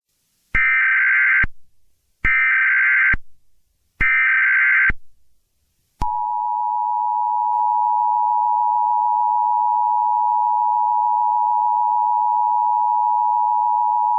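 Emergency Alert System alert tones: three SAME header data bursts, each about a second long with short gaps, then about six seconds in the steady two-tone EAS attention signal, which holds for about eight seconds and cuts off near the end. The tones signal that an emergency warning message follows.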